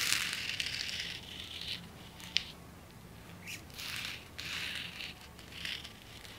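A knit cotton work glove rubbing and scraping over a steel plate and the weld spatter beads stuck to it, in several scratchy passes, with one sharp tick about two and a half seconds in.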